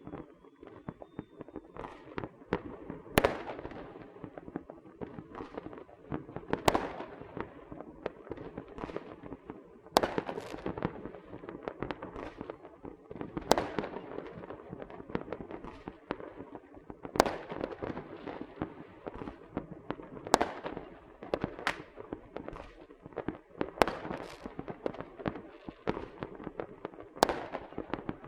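Small fireworks and firecrackers going off: a continuous crackle of small pops, with sharper, louder bangs every few seconds.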